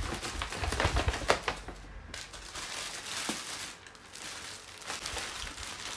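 Tissue paper and plastic wrapping rustling and crinkling as a wrapped handbag is pulled out of a paper shopping bag. It is busiest in the first two seconds, with a few light knocks, then turns to sparser crackles.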